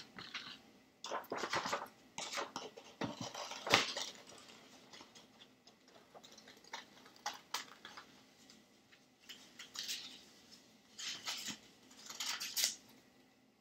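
Scissors cutting a circle out of orange paper: irregular runs of snips and paper crackle in short bursts, with a sharper click a few seconds in.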